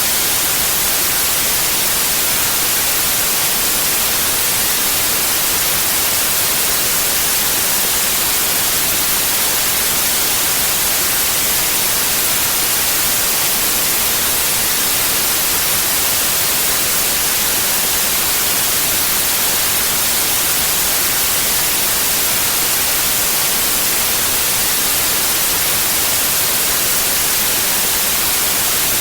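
Steady white noise: an even, unchanging hiss, brightest in the high frequencies.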